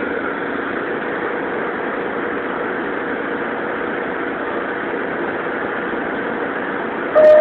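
Steady hum and hiss inside a stopped Pullman Standard R46 subway car. Near the end a loud steady tone starts, the first note of the door chime.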